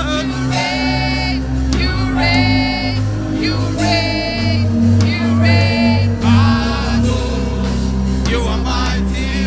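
Worship music: a singing voice holding long notes with vibrato, one phrase about every second, over sustained low bass notes.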